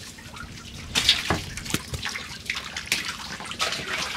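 Wet cast net being handled as fish are picked out of it: irregular wet slaps and clicks with dripping, trickling water.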